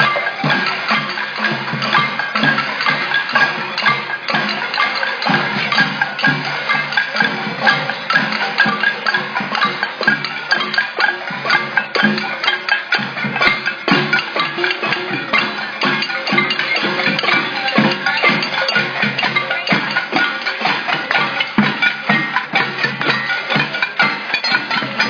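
Many people beating on pots and pans in a dense, continuous clatter of fast, irregular hits with a metallic ring, a protest pot-banging din.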